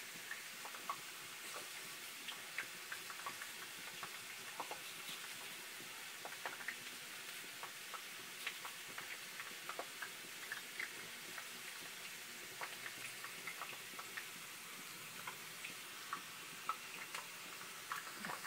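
Small knife cutting a spiral into a raw potato turned on a skewer: scattered, irregular small clicks and crunches over a steady faint hiss.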